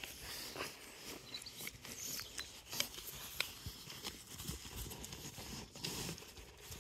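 Sheep chewing apple pieces and pulling at grass close to the microphone: scattered crisp crunches and clicks.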